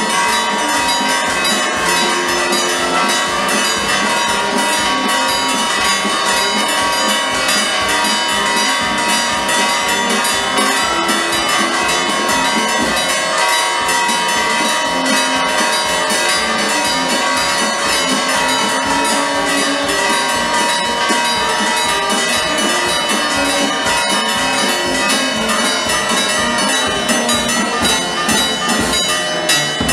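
Church bells ringing a continuous peal, many bells sounding together with long overlapping tones over a rapid run of strokes.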